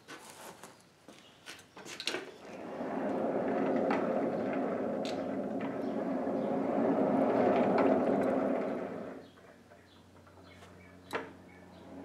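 Coal forge's air blower running steadily for about six seconds, feeding air into the coals under a pan of melting lard, then cut off. There are a few light knocks before it and one sharp knock after.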